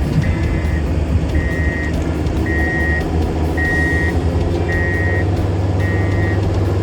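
A vehicle reversing alarm beeps evenly, about once a second, over the steady running of a heavy vehicle's engine, with a truck and a bogged forklift being worked.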